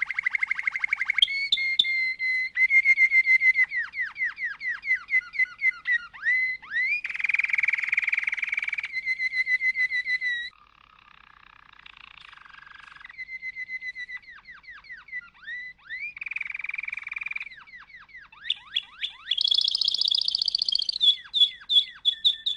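Domestic canary singing a long song of fast trills and rapid sweeping notes, with a quieter, softer passage for a couple of seconds midway.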